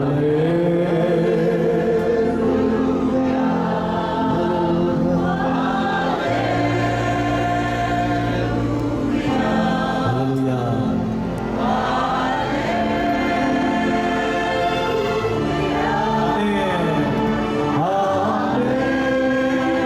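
A group of voices singing a worship song together in long held notes that glide from one pitch to the next.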